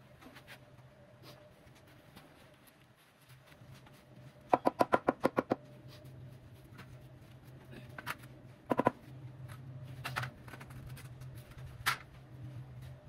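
Large porcelain paving tile being tapped down into its mortar bed: a quick run of about eight sharp, ringing taps about four and a half seconds in, then a double tap near nine seconds and single taps near ten and twelve seconds.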